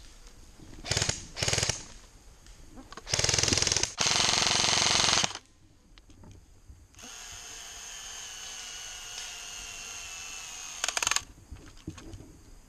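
Airsoft electric guns firing on full auto: two short bursts of rapid clicks, then a longer burst of about two seconds, and one more short burst near the end. A quieter steady hiss runs between the long burst and the last one.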